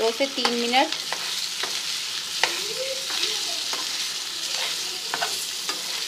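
Diced potatoes sizzling in hot ghee in a frying pan while a metal spoon stirs them, clicking and scraping against the pan now and then over a steady hiss.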